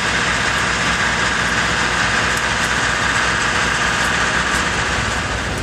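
Diesel locomotive engine idling: a steady low hum under a loud, even hiss.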